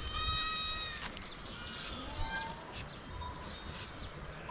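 Sheep bleating: one high, clear bleat about a second long at the start, followed by fainter, shorter bleats from the flock and a few soft knocks.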